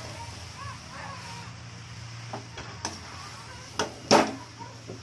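Metal ladle stirring and scraping mixed vegetables in a metal kadhai, with a few sharp clanks of the ladle against the pan, the loudest about four seconds in.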